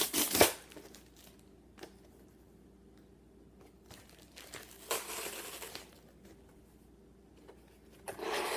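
Packaging rustling and crinkling as a cardboard box and its packing material are opened and handled by hand. A burst of crinkling comes at the start, another rustle about five seconds in, and more near the end, with a few small clicks in the quieter stretch between.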